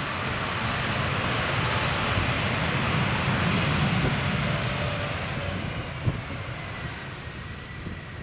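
Airbus A320neo jet engines rushing as the airliner rolls out along the runway after touchdown. The noise is loudest about three to four seconds in and then fades, with a faint high whine near the end. Low gusty wind rumble sits underneath.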